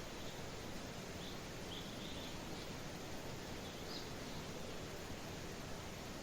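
Steady hiss of light rain with a few faint, short bird chirps scattered through the first few seconds.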